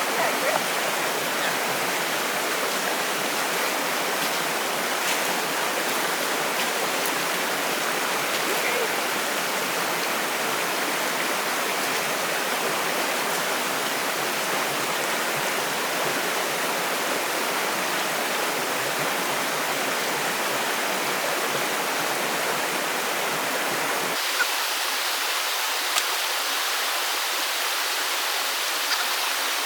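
Steady rush of fast-flowing water. About 24 seconds in, the deepest part of the rush drops away abruptly, and a couple of faint clicks follow.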